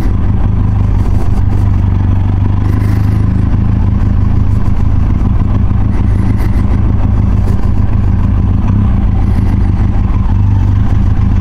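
Benelli TRK 502X's parallel-twin motorcycle engine running steadily at an even, unchanging pitch.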